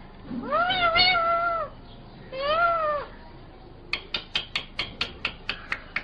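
Indian ringneck parakeet giving two drawn-out, meow-like calls, each rising, holding and falling in pitch, then a fast run of sharp clicks, about five a second, from about four seconds in.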